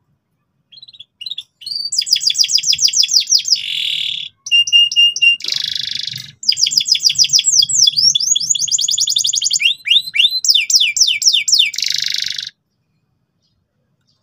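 Domestic canary singing a long, loud song of fast trills of repeated high notes broken by a few short harsh rasping phrases. It starts about a second in and stops about two seconds before the end.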